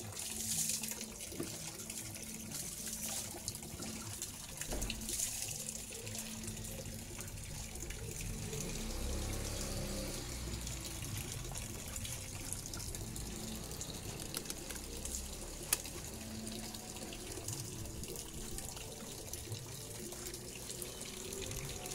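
Water running from a garden hose into a plastic tub of wash water.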